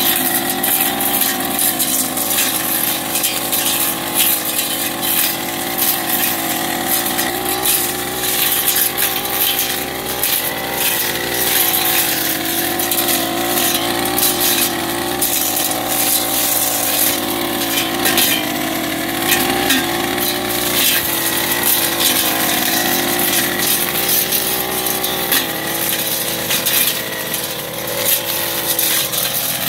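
Backpack brush cutter's small petrol engine running at working speed, its pitch wavering a little with the throttle, while the cutting head tears through grass and undergrowth with frequent crackling ticks.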